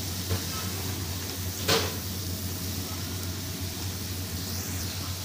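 Potato fries deep-frying in a wok of hot oil, a steady sizzle, the batch nearly done. A light tick comes just after the start, and a sharper metal clink from the wire skimmer against the pan comes about a second and a half in.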